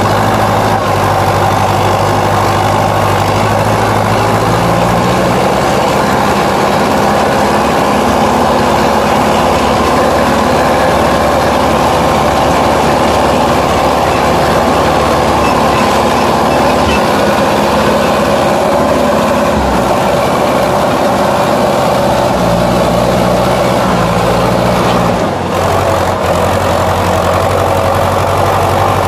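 Sonalika All Rounder 55 hp tractor's diesel engine running steadily under load while ploughing, heard loud and close from the driver's seat. Its note shifts slightly now and then and dips briefly near the end.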